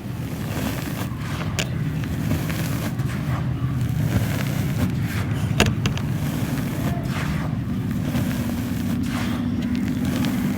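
Dry red dirt being crumbled by hand on a floor: scattered crunches and crackles over a steady low rumble.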